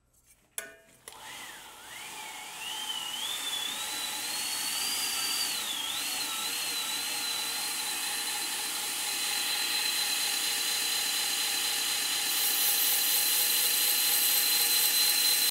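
Electric motor of a 2x72 belt grinder, run through a variable-frequency drive, spinning up with a whine that rises and wavers in pitch, then holds one steady tone. About twelve seconds in, a brighter hiss joins as a knife edge is ground against the 600-grit ceramic belt running in reverse. The sound cuts off suddenly at the end.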